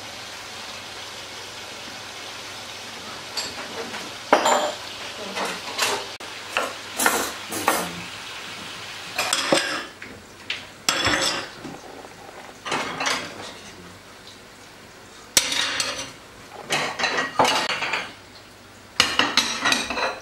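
Dishes, plates and pots clinking and clattering as they are handled, in irregular clusters. The clatter starts a few seconds in, and the loudest bursts come near the end.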